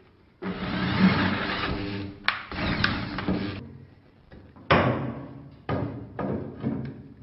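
Electric drill running under load, drilling out the holes in heavy starter-cable terminals to a larger size: one run of about three seconds that stops suddenly, then several shorter bursts.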